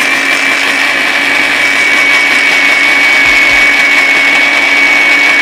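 Electric blender with a small dry-grinding jar running steadily, grinding roasted coffee beans: a loud motor with a high, steady whine. It is being run longer because the grind is still too coarse for tubruk coffee.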